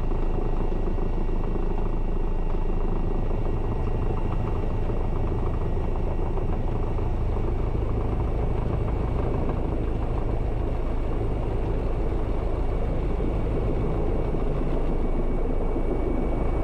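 Airbus EC135 twin-engine helicopter heard from inside the cockpit during a slow descending approach to land: a steady rotor and engine rumble with a faint, steady high-pitched whine.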